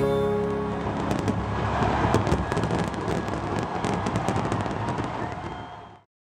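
Fireworks crackling, a dense stream of rapid small pops, fading away and cutting off near the end. The last held notes of music die away in the first second.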